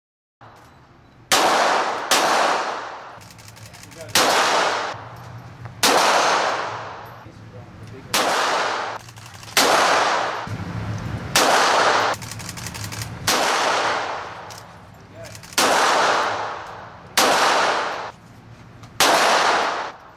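Single pistol shots fired one at a time, about eleven of them at roughly two-second intervals. Each sharp crack rings off in the long echo of an indoor shooting range.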